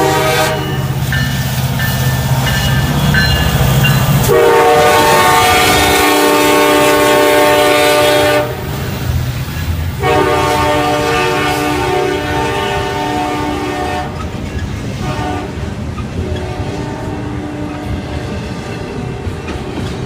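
Union Pacific SD70ACe freight locomotive sounding its air horn for a grade crossing: one blast ending about half a second in, then two long chord blasts of about four and five seconds, over the locomotive's low diesel rumble at first. In the last few seconds the horn has stopped and the double-stack intermodal cars roll past with their wheels clattering on the rails.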